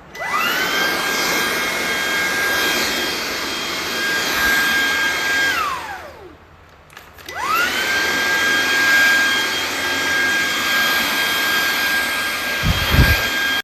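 Xiaomi G9 Plus cordless stick vacuum switched on, its motor whine rising quickly to a steady high pitch. After about five and a half seconds it is switched off and the whine falls away as the motor spins down. About a second later it is switched on again and runs steadily, with a few low thumps near the end.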